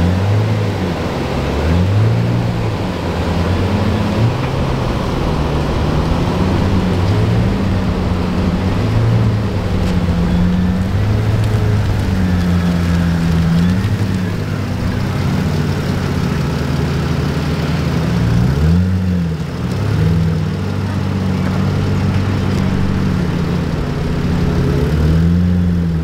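A car engine running, its pitch holding for a second or two and then rising or falling as the revs change, with a quick drop and swoop back up about two-thirds of the way through.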